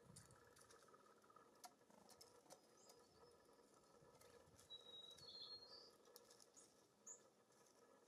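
Faint scattered clicks and taps of small birds feeding at seed feeders, with a few short, high bird chirps about five seconds in and one more near the end.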